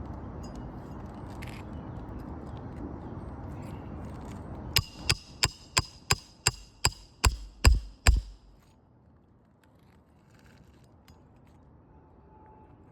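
A roofing hammer drives a roofing nail into an asphalt shingle: about ten sharp blows at roughly three a second, the last few the heaviest. Before the blows there is a steady low rumble.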